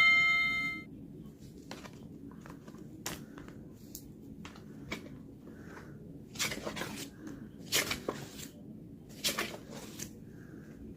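A handcrafted notebook's paper pages and cover being handled: soft rustles and swishes, with three louder swishes in the second half. At the start, the ring of a bell fades out.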